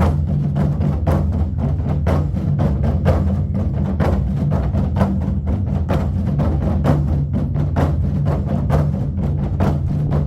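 Korean buk barrel drums beaten by a troupe in fast, steady strokes over a backing music track with a sustained low bass.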